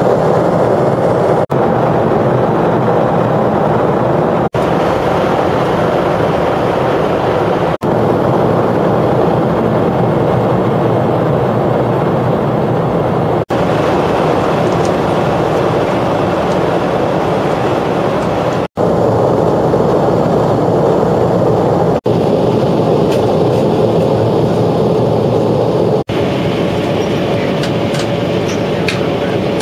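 Airliner cabin noise on the approach: a steady, loud rush of jet engine and airflow noise heard from a passenger seat, broken by several split-second drop-outs.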